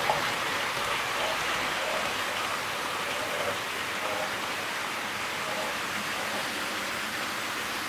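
HO-scale model trains running on track: a steady rush of wheels on rail, with a faint on-and-off whine. The Jouef TGV Duplex passes close by at the start, with a single sharp click as it goes and a slight groan from the transmission on its two powered axles.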